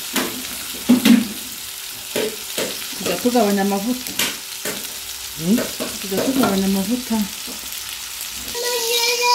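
Ground-beef burger patties sizzling in oil in a non-stick frying pan, with a spatula clicking and scraping against the pan now and then.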